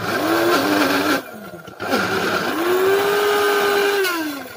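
Electric mixer grinder grinding grated coconut with green chillies, cumin and turmeric into a coarse paste, run in two pulses. It runs about a second, drops off briefly, then runs again for about two seconds before cutting off and winding down with a falling whine near the end.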